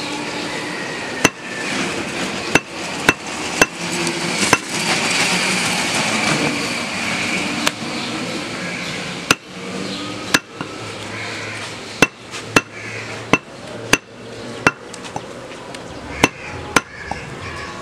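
Heavy butcher's cleaver chopping goat meat on a wooden tree-stump block: about fifteen sharp chops at an uneven pace, over a steady background hiss.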